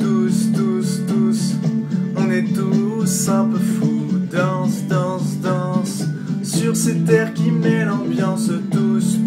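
A song: a man singing over a steady, continuous musical backing.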